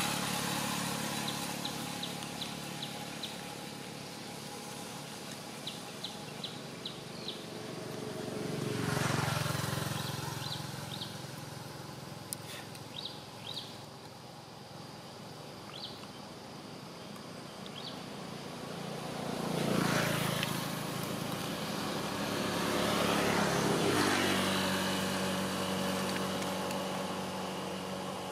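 Motorbikes passing on a road, each swelling and fading away: three passes, about nine seconds in, around twenty seconds and again near twenty-four, over a steady outdoor background. Faint short clicks come in small runs between the passes.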